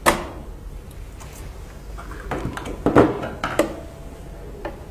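Sharp clicks and knocks of wire connectors being unplugged from a sublimation press's circuit board. One loud click right at the start, then a cluster of smaller clicks and knocks about two to four seconds in.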